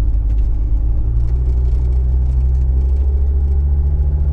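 Freshly rebuilt Jeep Grand Cherokee WJ 2.7 CRD five-cylinder diesel (Mercedes OM612) running under light load on the road, heard inside the cabin as a steady low rumble together with road noise. The engine note rises a little in steps as the Jeep gathers speed.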